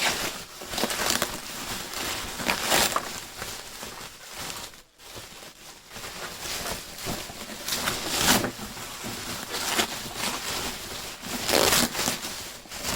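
Plastic bag and packaging rustling and crinkling in irregular bursts as a parcel wrapped in a bin bag is cut and pulled open by hand, with a brief lull partway through.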